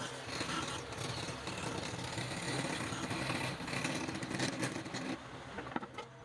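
A woodworking power tool's motor running steadily under load, easing off about five seconds in, with a few sharp knocks near the end.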